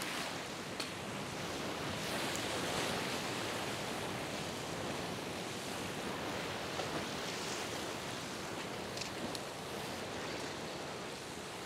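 Steady wash of ocean surf, with a few faint clicks.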